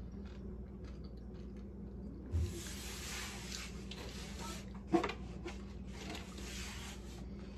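Close-up chewing of crunchy taco and nacho food, in crackly stretches of crunching, with a low thump a little over two seconds in and a sharp click about five seconds in.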